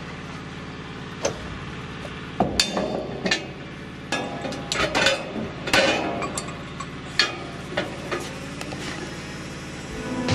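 Steel clinks and knocks as a red swivel lifting hook is worked free of a drum lifter's eye, with a dozen or so sharp metal clanks, most of them about two to six seconds in, over a steady low hum.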